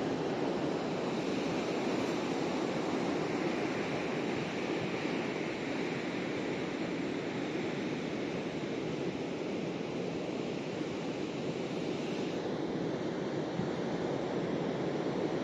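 Steady rushing noise of surf, with wind; it swells a little now and then.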